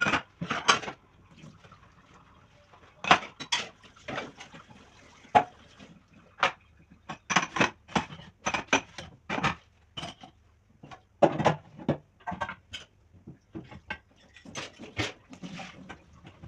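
Dishes and cutlery clinking and clattering as they are washed by hand: a string of separate sharp knocks and rattles with short pauses between.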